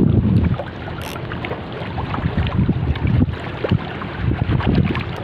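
Choppy sea water lapping and splashing in many small, irregular slaps, with wind buffeting the microphone for the first half second.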